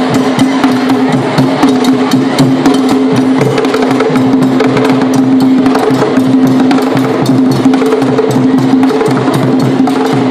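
Loud dance music driven by drums and sharp, wooden-sounding clicking strikes in a busy, even rhythm, over a steady held low note.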